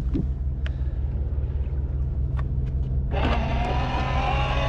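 The boat's engines running in a steady low rumble, worked forward and backward to break a fouled anchor free of the harbour bottom, with a few light clicks. About three seconds in, a brighter sound with several steady tones suddenly cuts in over the rumble.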